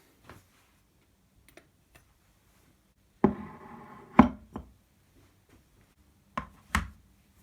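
A few sharp knocks and clatters of objects being handled. The first, about three seconds in, rings on briefly. Another strong knock follows a second later, and two more come close together near the end.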